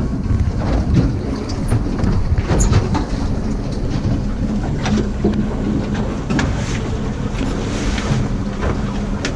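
Steady low mechanical hum aboard a fishing boat, with wind rumbling on the microphone and several scattered knocks and clatters on deck.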